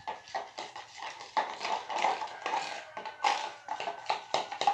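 A spoon stirring a thick pink glue slime base with glitter in a plastic bowl: irregular clicks and scrapes as it knocks and drags against the bowl, with wet squelching from the glue.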